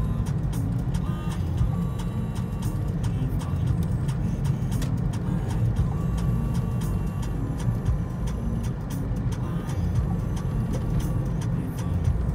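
Road noise inside a moving car's cabin: a steady low rumble of engine and tyres while driving.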